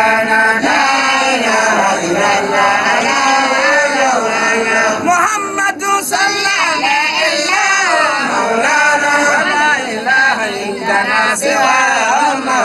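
A man's voice chanting a melodic religious recitation, amplified over a loudspeaker, with long held notes that rise and fall.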